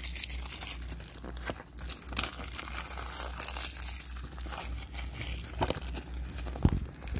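Plastic shrink-wrap on a DVD case crinkling and tearing as it is peeled off by hand, in quick crackles, with one heavier thump near the end.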